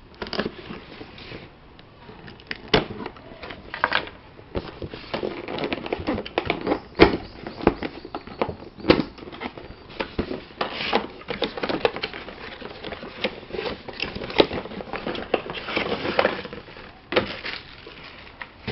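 A cardboard headset box being opened and its packaging handled, giving irregular crackles, taps and scrapes of cardboard and plastic.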